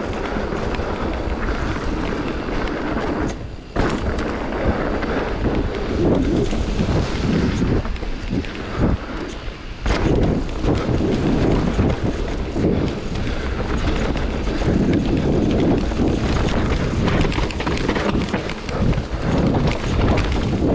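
Wind buffeting the microphone of a rider moving along a rough, muddy mountain-bike trail, with irregular bumps and rattles of the ride underneath. There is a brief drop in the noise about three and a half seconds in.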